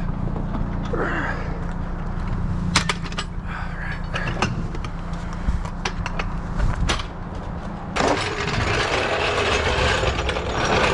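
Heavy metal floor jack being handled and moved into place: scattered metallic clanks and knocks, then a louder scraping rattle for the last few seconds, over a steady low rumble.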